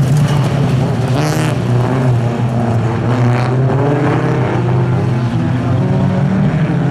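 Several jokkis autocross saloon cars racing together through a corner, their engines making a continuous mixed drone whose revs rise and fall.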